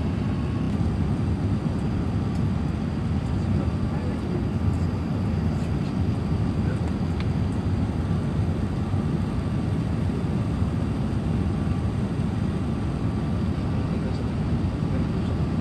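Airliner cabin noise on approach to landing with the flaps extended: a steady low rumble of engines and airflow heard from a window seat.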